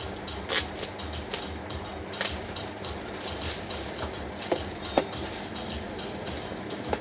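Clear plastic bag crinkling and rustling as it is pulled off a new electric dry iron, in sharp crackles, the loudest about half a second and two seconds in. A few light knocks follow as the iron and its cord are handled and set down on the counter.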